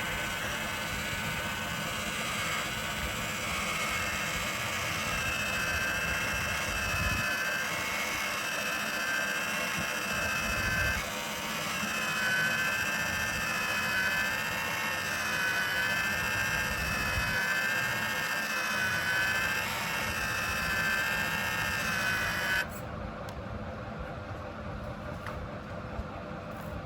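Small electric motor and gearbox of an RC truck whining, the pitch rising and falling with the throttle. Near the end the sound changes abruptly to a duller, quieter whir.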